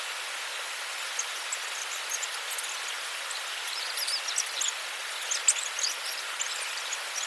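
Steady rain hiss with scattered drops ticking on a nearby surface; the drops come thicker about halfway through.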